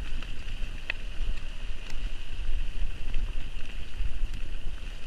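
Wind rumbling on the camera microphone over mountain bike tyres rolling down a muddy, leaf-covered trail, with a steady high hiss and a few sharp clicks, about one a second, as the bike goes over bumps.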